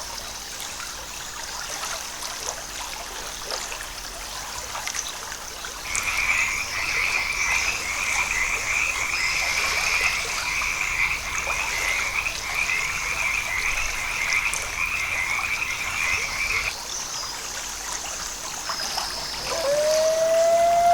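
Forest animal chorus: a steady high-pitched chorus throughout, joined from about six seconds in by a rapid pulsing trill that stops abruptly several seconds before the end. A held musical tone comes in near the end.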